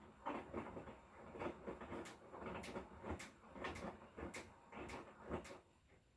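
Hotpoint Core 8 kg inverter washing machine turning its drum in the wash: laundry tumbling and swishing with sharp clicks and knocks about twice a second. The drum stops about five and a half seconds in.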